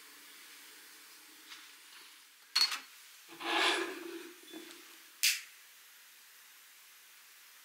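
A slim metal candle lighter being worked to light a tealight: a sharp click, then about a second of hissing, then another sharp click.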